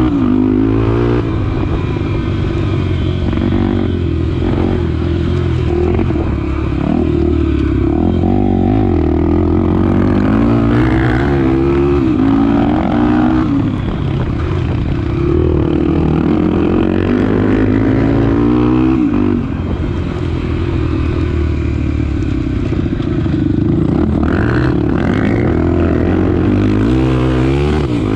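Honda XR250 Tornado trail bike's single-cylinder four-stroke engine under way, its pitch rising and dropping again and again as the throttle is opened and closed through the gears.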